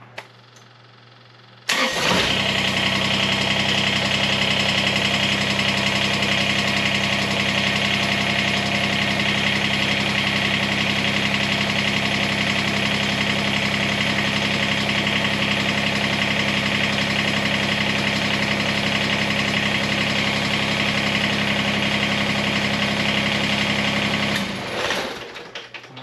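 Kubota BX23S compact tractor's three-cylinder diesel engine starts about two seconds in, runs steadily for roughly twenty seconds, then is shut off near the end. It is a brief run after an oil and filter change, to circulate the fresh oil before the level is checked.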